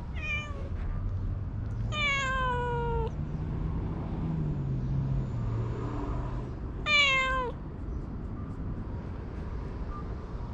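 A cat meowing three times: a short meow at the start, a longer meow falling in pitch about two seconds in, and a louder falling meow about seven seconds in, over a low background rumble.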